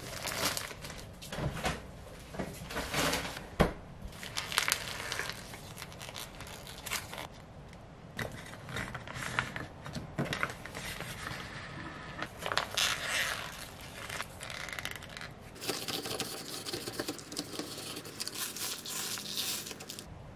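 Food-prep handling: a plastic bread bag rustling and crinkling with light knocks as slices are laid on a wooden board, then a plastic pouch of sweet potato mousse crinkling as it is squeezed out. For the last few seconds a knife scrapes steadily, spreading the mousse over the bread.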